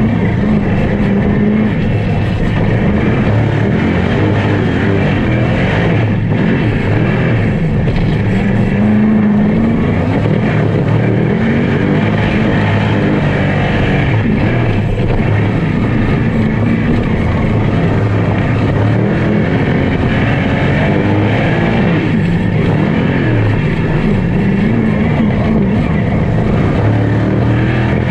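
Non-wing sprint car's V8 engine running hard in hot laps, heard from inside the open cockpit. It is loud throughout, its pitch rising and falling as the throttle comes on and off through the corners.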